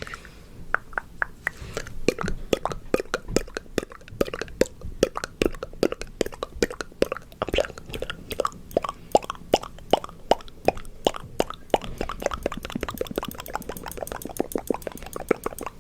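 Close-miked ASMR mouth sounds: a rapid, uneven run of wet tongue clicks and lip pops, several a second, their pitch shifting from click to click.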